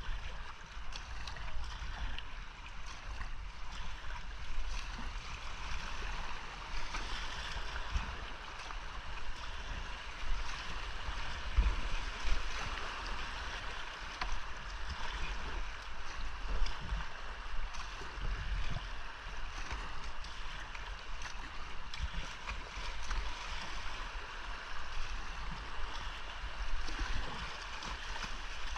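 Rushing whitewater of a steep creek around a racing kayak, a steady hiss with irregular low thumps throughout.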